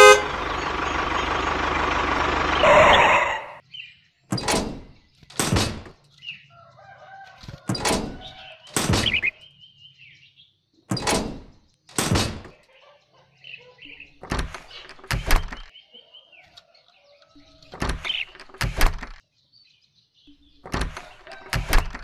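A steady rushing sound for the first three seconds, then sharp clicks, mostly in pairs, as curved metal strips and flat strips are set down onto a miniature brick bridge's walls. Faint bird chirps in the background.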